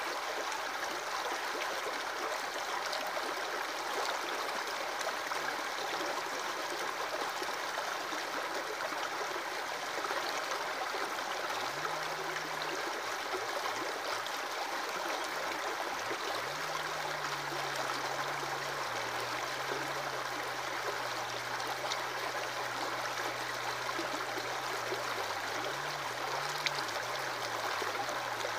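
Aquarium filter return water splashing steadily into the tank, a constant trickling rush, with a faint low hum that wavers in pitch coming in partway through.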